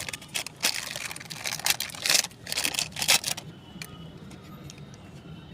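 Plumbing material being cut by hand during a tank connection install: a run of irregular rasping strokes for about three and a half seconds, then it stops.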